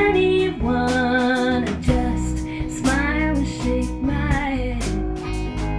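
A band playing live with no words sung: strummed acoustic guitar over a steady beat, with a bending melody line on top.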